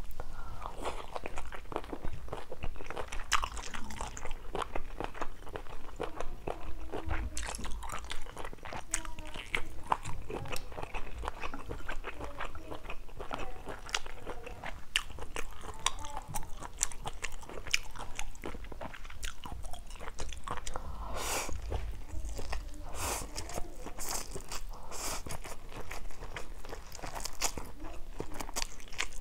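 Close-miked mouth sounds of a person eating stir-fried seafood instant noodles: steady chewing and biting with many small wet clicks and smacks.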